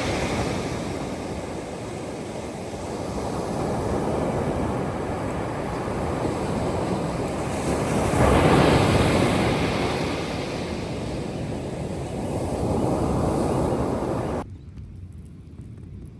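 Ocean surf breaking on the beach: a steady wash of waves that swells and fades, with one large surge about halfway through. Near the end it cuts off suddenly to a much fainter hush.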